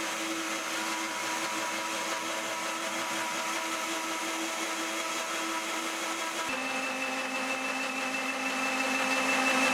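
Countertop blender motor running steadily, blending a smooth milky drink in its covered jug. About six and a half seconds in, its pitch drops a step and then holds steady again.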